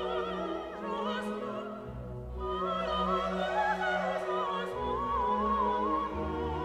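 Music: a classical, operatic voice singing with a wide vibrato over an orchestral accompaniment with strings.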